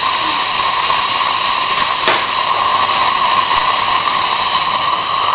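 Surgical implant motor turning a countersink drill in a contra-angle handpiece, a steady whine over a hiss, as the drill widens the implant hole in the jawbone from 2 to 2.8 mm.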